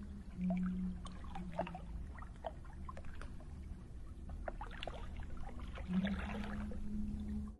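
Water lapping and trickling against a wooden rowboat on calm water: small irregular splashes and drips over a low steady hum, with a low tone that comes and goes. It all cuts off suddenly at the end.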